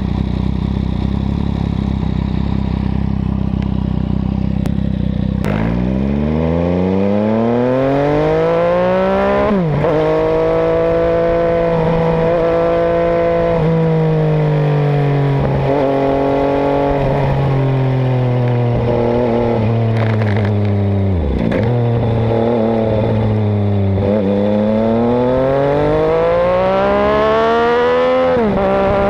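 MV Agusta Brutale 800's three-cylinder engine through a zero exhaust with no silencer, loud and raw. It idles steadily for about five seconds, then revs up as the bike pulls away. The pitch climbs and falls through several gear changes, with sharp drops at the shifts and a long rising pull near the end.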